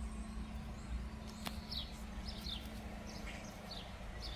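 Small birds chirping: short, high, downward-sliding chirps repeating a couple of times a second, with a single sharp click about a second and a half in.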